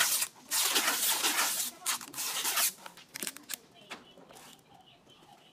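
Adhesive packing tape ripping off a roll in several long pulls over the first few seconds, followed by a few light handling clicks on the cardboard firework tubes.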